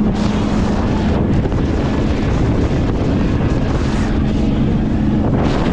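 Jet boat engine running at speed, with heavy wind buffeting on the microphone. Its steady drone fades out for a couple of seconds in the middle, and brief hissing rushes come just after the start, around four seconds in and near the end.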